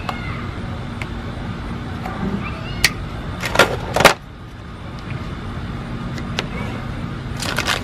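Orange plastic Hot Wheels track pieces being pulled out of their cardboard box, with a few sharp clacks and rustles of plastic and cardboard over a steady background noise.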